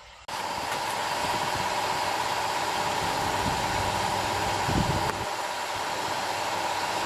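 A steady mechanical hum with a constant whine, starting abruptly a moment in and holding at an even level.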